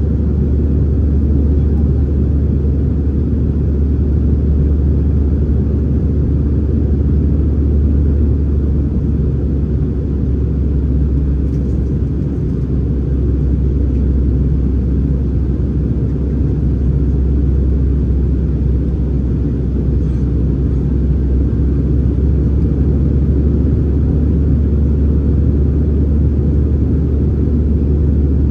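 Steady low rumble of an Airbus A319-111's CFM56-5B jet engines and airflow, heard from inside the passenger cabin.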